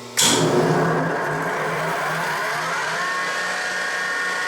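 Three-phase cutter head motor of a Yates American B244 thickness planer started from a dead stop: a sudden loud start, then a rising whine as the motor and cutter head spin up, levelling off into a steady run about three seconds in. The old bearings are noisy.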